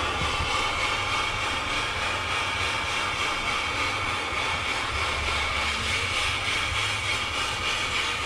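Steady running of a workshop machine: a low motor hum with a steady high whine above it.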